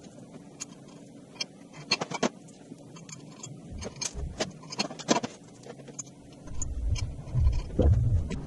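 Sped-up workshop assembly noise: a quick, irregular run of clicks and metallic knocks from parts and tools being handled, turning into a heavy low rumble of thuds for the last two seconds or so.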